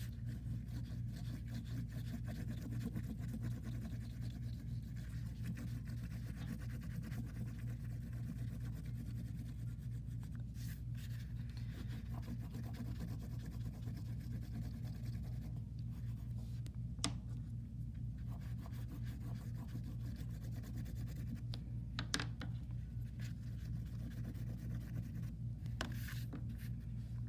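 Oil pastel scratching across paper in quick, short, repeated strokes, over a steady low hum. A few sharp clicks stand out, the loudest past the middle.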